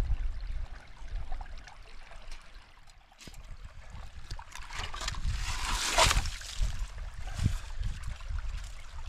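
Water trickling and splashing as hands work a trap into a shallow brook, with scattered knocks and one louder splash about six seconds in.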